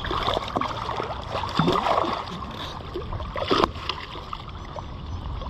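Hooked smallmouth bass splashing at the water's surface during the fight, in irregular bursts, with one sharp slap about three and a half seconds in.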